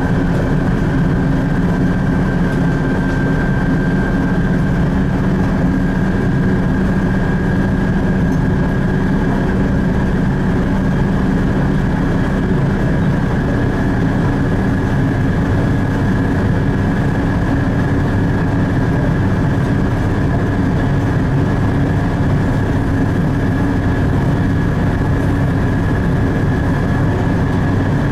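Ise Railway diesel railcar running along the line, heard from the cab: a steady engine drone with rail noise and a thin high whine over it. The engine note settles lower about halfway through.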